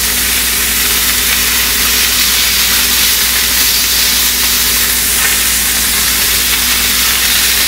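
Striped bass fillets frying in hot olive oil in a stainless steel sauté pan on high heat: a steady sizzling hiss.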